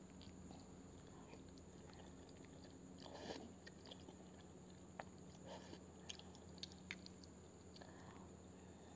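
Faint eating sounds: a person slurping and chewing soupy instant noodles, with small mouth clicks and two short slurps about three and five and a half seconds in, over a faint steady hum.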